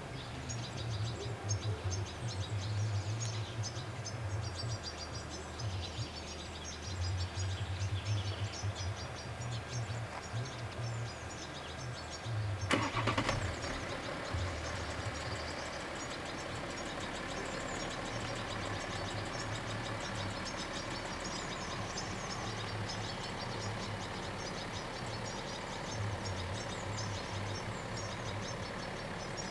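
Car engine idling at the closed crossing, a low, wavering rumble, with small birds chirping over it. One sharp knock sounds about halfway through.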